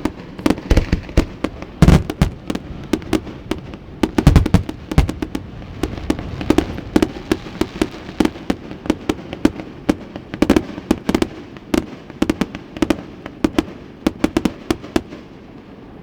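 Fireworks display: a rapid, irregular string of pops and crackles with several louder bangs, about 2, 4 to 5 and 10 to 11 seconds in.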